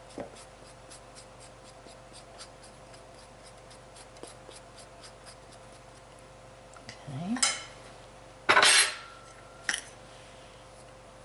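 A silicone spatula stirring crumbly cookie dough in a bowl, making faint light ticks. Between about seven and ten seconds in come a few louder scrapes and knocks against the bowl, one with a short squeak.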